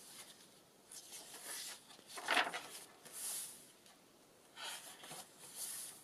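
Paper pages of a handmade junk journal rustling as a flip-out is opened and pages are turned, in several short bursts, the loudest about two seconds in.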